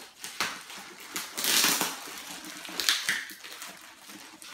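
Clear plastic packaging wrap crinkling and rustling in irregular bursts as it is handled and pulled off a box, loudest about a second and a half in.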